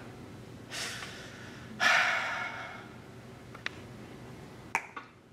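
A person breathes in, then lets out a long sigh about two seconds in. Two sharp clicks follow later on.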